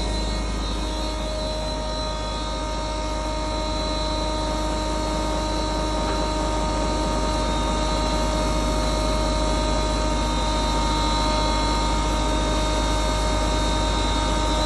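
Stoneless double-chamber bajra (pearl millet) grinding machine running steadily: a continuous mechanical hum with a steady whine.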